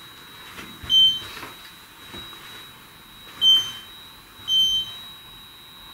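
Handheld static EMF detector giving three short high-pitched electronic beeps, about a second in, at three and a half seconds and a slightly longer one just after, over a faint steady high whine. The beeps are its alert for a detected field.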